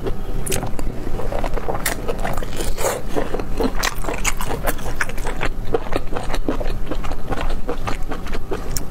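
Close-miked eating sounds: chewing and biting into saucy braised pork, and plastic-gloved hands pulling the meat apart, heard as an irregular run of short clicks over a steady low hum.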